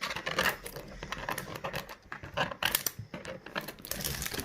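Plastic toy packaging being peeled and handled: irregular crinkling and rustling with light clicks and taps.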